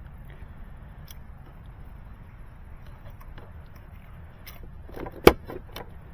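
Handling noise at a fiber house box: a few light clicks, then a sharp, loud click about five seconds in among several smaller ones, over a steady low rumble.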